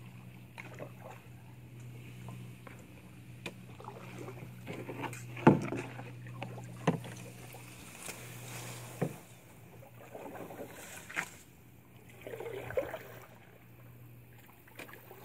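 Canoe being paddled: paddle strokes swishing in the water and several sharp knocks of the paddle against the canoe's hull, the loudest about five seconds in, over a steady low hum.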